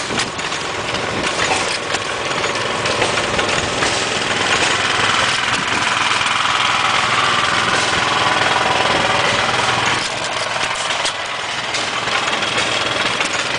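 Steady running of other, louder engines close by, swelling for several seconds in the middle and easing off about ten seconds in. It drowns out a small hit-and-miss stationary gas engine running right beside the microphone.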